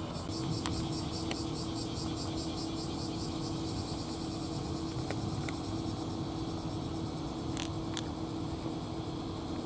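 A few sharp faint clicks from a cat chewing dry kibble, over a steady outdoor hiss and low hum, with a rapid high rhythmic pulsing in the first few seconds.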